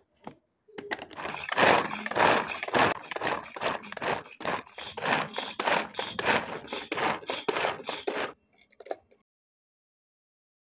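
Hand-powered vegetable chopper worked in quick repeated strokes, its spinning blades chopping carrot, onion, bell pepper and garlic inside the plastic bowl, about three strokes a second. The strokes stop after about eight seconds, followed by a faint click.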